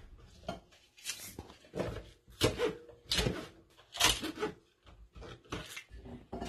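Kitchen knife cutting green onions on a plastic cutting board, along with the stalks being handled: a series of irregular knocks and clicks, the loudest about two and a half and four seconds in.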